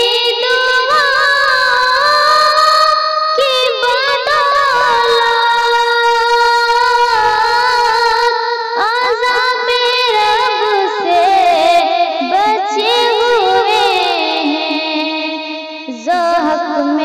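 A woman singing a naat in long held melodic lines that waver and turn in pitch, with a new phrase starting near the end.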